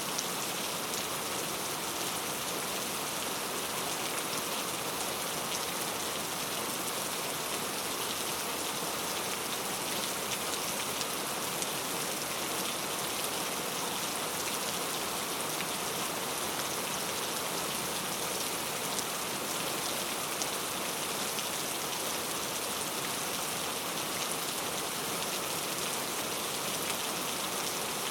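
Heavy rain falling steadily, a dense, even hiss of drops hitting surfaces with no let-up.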